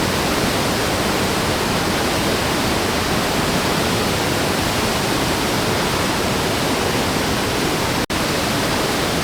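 Murchison Falls, where the River Nile forces through a narrow gorge: a loud, steady rush of falling water heard close to the falls. It cuts out for an instant about eight seconds in.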